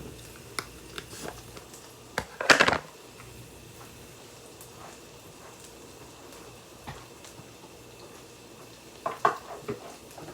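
Kitchen handling noises: scattered light clicks and knocks of dishes and utensils over a faint steady hiss, with one brief louder rustle about two and a half seconds in and a few more knocks near the end.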